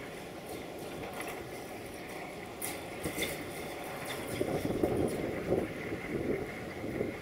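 Class 742 diesel shunting locomotive running steadily at a standstill, heard across the yard, with a few faint metallic clicks. From about four seconds in, wind gusts buffet the microphone in uneven bursts.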